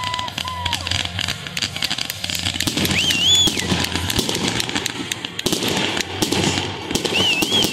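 Ground-launched fireworks cake firing a rapid barrage of shots with crackling. A brief high warbling whistle sounds about three seconds in and again near the end.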